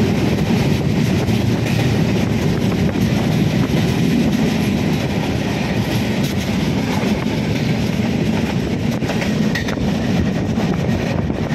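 Passenger train running at speed, heard from on board: a steady rumble of wheels on the rails.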